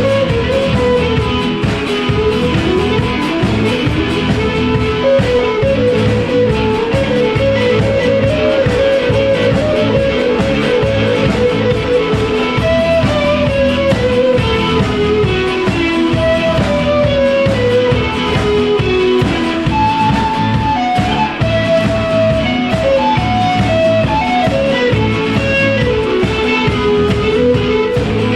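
Instrumental rock music: a lead electric guitar plays a melody of single notes, falling and climbing, over a steady drum beat.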